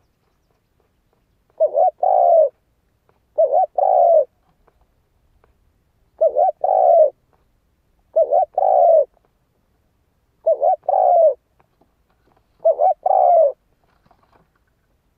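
Spotted dove (chim cu gáy) cooing its challenging call, used as a decoy call to excite other doves: six phrases about two seconds apart, each a quick stuttered opening note followed by a longer coo.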